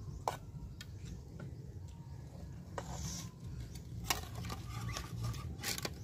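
Spoons clinking and scraping on plates and a metal rice pot as people eat: a few scattered light clicks over a steady low rumble.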